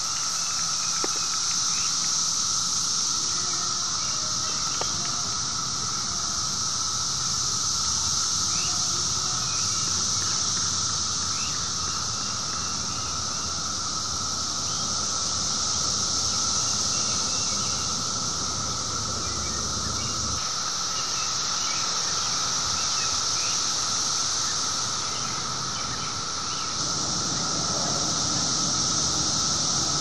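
Loud, steady chorus of 17-year periodical cicadas: a continuous high buzzing drone with a steady lower hum beneath it.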